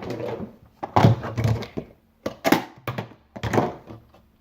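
A series of dull thuds as a large lump of homemade slime is handled and pressed: about five short thumps spaced irregularly, then quiet near the end.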